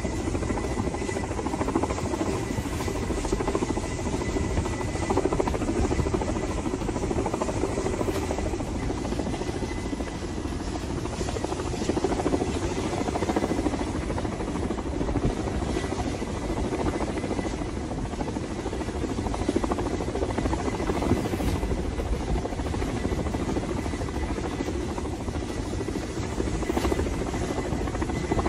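Kamov coaxial-rotor military helicopter hovering at close range, its rotors and turbines making a loud, steady noise with a thin steady high whine.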